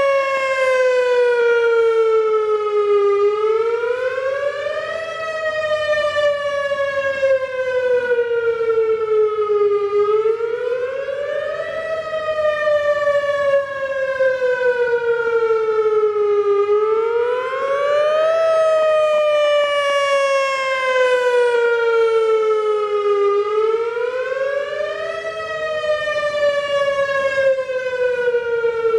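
Whelen WS-2000R rotating electronic tornado siren sounding a wail: a loud tone that rises quickly, then slides slowly back down, about every six to seven seconds, swelling and fading slightly as the speaker array turns.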